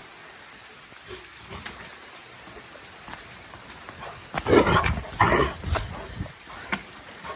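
Maremma-Abruzzese sheepdog giving two gruff, growly vocal bursts back to back, about four and a half seconds in, over scattered drips of rain.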